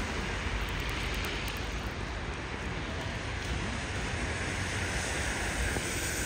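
Steady city street ambience: a constant rushing noise over a low rumble of traffic, with wind on the microphone.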